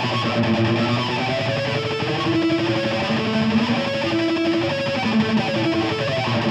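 Electric guitar sounding natural harmonics (flageolets), the string touched lightly over the fret wire without pressing and then picked. It plays a run of single ringing notes at changing pitches, each held about half a second, through a heavily distorted high-gain amp tone.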